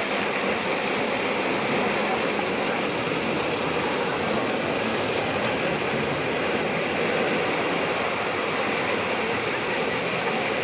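Fountain water jets spraying, with the spray pouring down onto the paving and a rubber dinghy: a steady rushing hiss.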